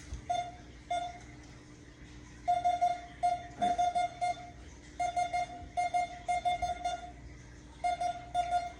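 Metal detector beeping in short tones of one steady pitch, some single and some in quick runs of several beeps, as it is swept over a Glock pistol: it picks up the gun, but only as a weak signal.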